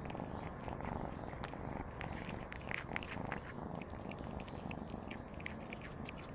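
A cat purring steadily, picked up very close by a camera the cat is wearing, with scattered light clicks and rustles over it.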